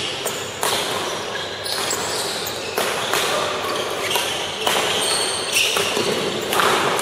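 Badminton rally: rackets smacking the shuttlecock about once a second, with sneaker squeaks on the court floor, echoing in a large hall.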